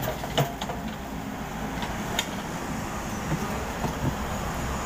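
Komatsu PC78US mini excavator's diesel engine running steadily as it digs, with a few sharp clicks and knocks of the bucket against rubble and stones, the sharpest about two seconds in.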